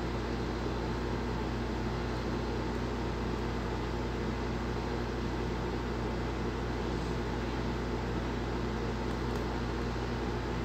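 Steady low hum with hiss that does not change, with no distinct events: the recording's background noise, like a fan or electrical hum.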